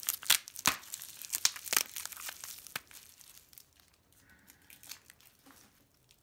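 Clear plastic wrapping crinkling and crackling as hands peel it off coin capsules. There are several sharp crackles in the first three seconds, then it drops to faint rustling.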